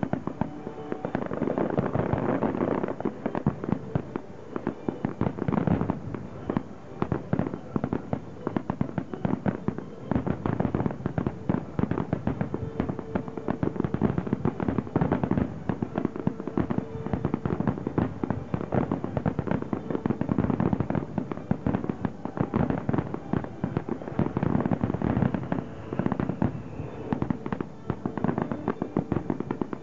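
Aerial fireworks shells bursting in rapid, near-continuous succession, the booms overlapping with no pause.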